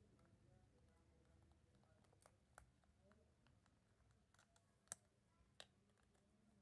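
A few faint, sharp clicks and taps, spread irregularly, the loudest about five seconds in, over a low background hum.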